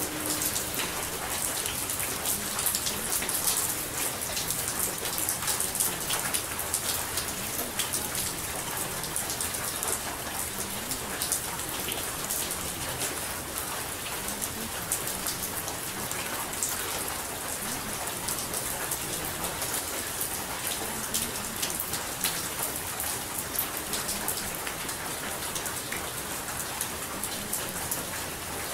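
Steady rain falling, an even hiss dense with the patter of individual drops, used as the backdrop track of a subliminal recording.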